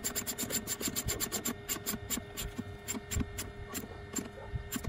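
Ratchet wrench clicking as the nut on a battery terminal clamp is tightened: rapid, even clicks that slow and grow sparser after about a second and a half.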